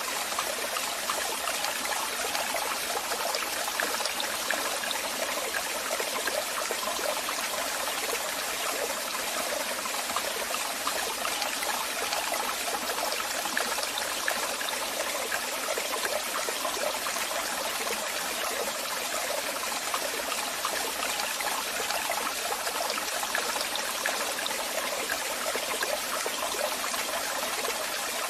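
Waterfall: water falling and splashing in a steady, unbroken rush, mostly high and hissy with little low rumble.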